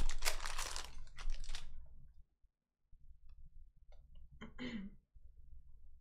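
Foil wrapper of a Panini Donruss basketball hobby pack crinkling loudly as it is torn open for about the first two seconds. Then faint clicks and a short rustle as the trading cards are flipped through.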